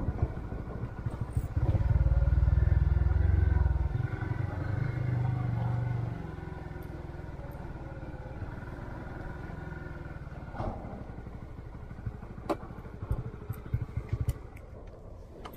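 A Honda scooter's single-cylinder engine running while the scooter is ridden. It is loudest from about two to six seconds in, then settles to a steadier, quieter drone. A few short knocks come near the end.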